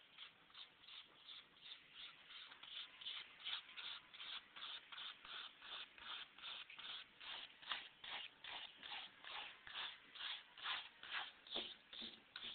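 Paintbrush scrubbing oil paint onto a painting in quick, even back-and-forth strokes, about three a second.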